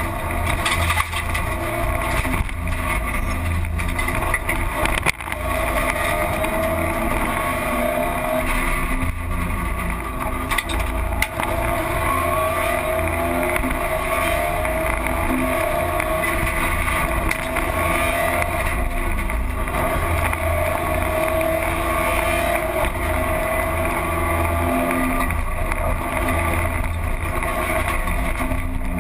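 Rally car engine heard from inside the cabin at speed, revs rising and falling steadily over a low rumble of road and tyre noise, with one sharp knock about five seconds in.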